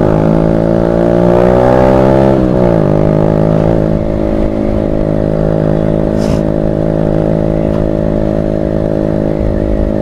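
Motorcycle engine through a loud SC Project aftermarket exhaust, pulling with the pitch rising gently for about two seconds, then dropping sharply as the throttle closes, and afterwards running at an even pitch while cruising.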